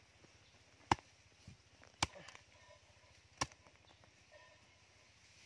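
A short-handled hand hoe chopping into soil: three sharp blows about a second apart, with a fourth right at the end.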